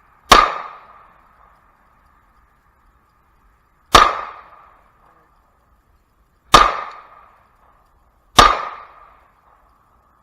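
Four pistol shots fired one at a time, a few seconds apart with the last two closer together, each followed by about a second of echo. A faint steady high hum runs underneath.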